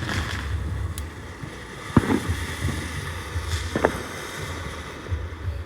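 A few sharp firework bangs, a second or two apart, over a low rumble of wind on the microphone.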